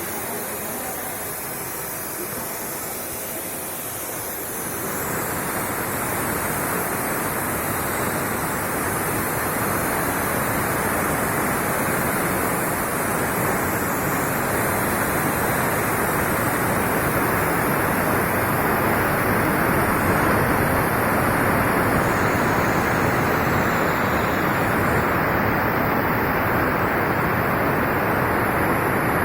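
CNC plasma cutting machine at work: a steady rushing hiss that grows louder about five seconds in and then holds even.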